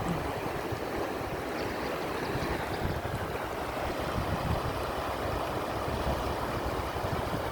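Small river flowing: a steady rush of water. Low irregular rumbles of wind buffet the microphone.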